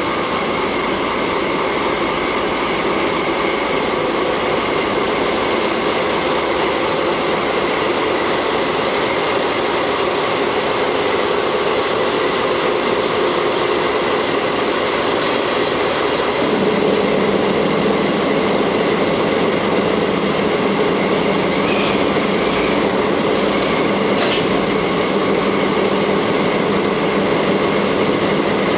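DD51 diesel-hydraulic locomotive's twin diesel engines running steadily as it eases slowly up to flat wagons to couple on. The engine note drops and steadies about halfway through, and a few faint sharp clicks come near the end.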